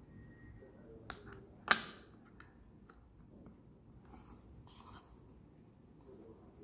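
Sharp small clicks of steel screwdriver bits being handled in the tray of a Xiaomi Mijia Wiha 24-in-1 precision screwdriver set, one much louder click about a second and a half in, followed by a faint scraping as the case is moved.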